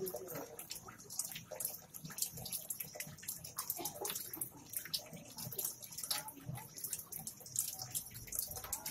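Saltwater aquarium water bubbling and trickling, with a steady crackle of small bubbles.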